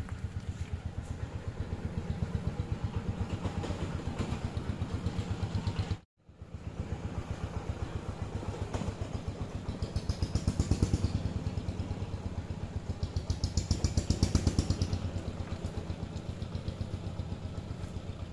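An engine running steadily off-screen with a rapid, even pulse. It swells twice in the middle and cuts out briefly about six seconds in.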